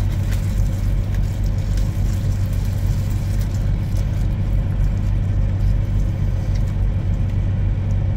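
Steady low rumble of an idling diesel truck engine, heard from inside the truck's cab.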